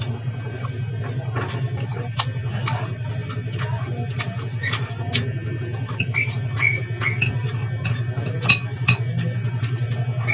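Close eating sounds: chewing and lip smacking, with scattered light clicks of chopsticks and dishware, over a steady low hum.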